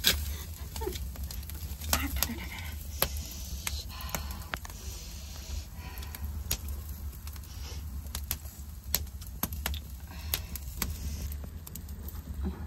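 Open wood fire crackling and popping with irregular sharp snaps, over a steady low rumble.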